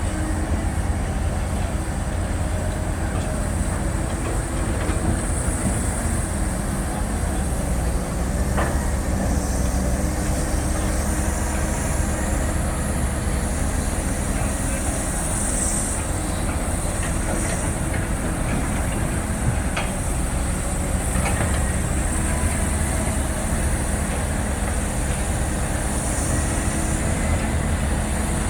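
Heavy diesel engines of a Cat 320 excavator and a dump truck running steadily while the truck is loaded with soil, with a few faint knocks.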